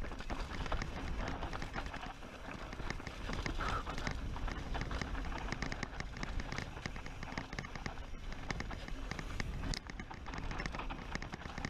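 Mountain bike descending a steep, rocky rut: the tyres crunch and clatter over dirt and stones, and the bike rattles, in a dense run of small irregular impacts. A steady low rumble of wind on the microphone runs underneath.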